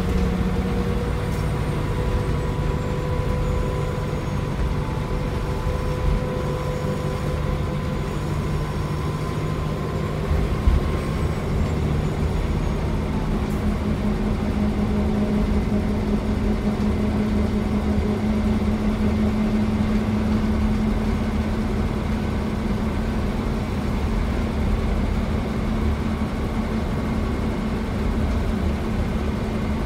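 Scania K340 coach's engine humming steadily under way, with road and tyre noise, as heard from inside the passenger cabin. About 13 seconds in, the engine note steps up a little in pitch and holds. There is a single knock a few seconds before that.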